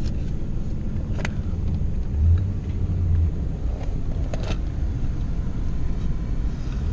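Steady low rumble of a Ford car's engine and tyres heard from inside the cabin as it drives slowly, swelling briefly about two seconds in, with a couple of faint clicks.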